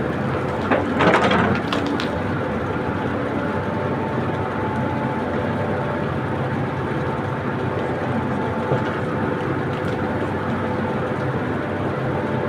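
Heavy machine engine running steadily, with a short burst of clanking and cracking about a second in.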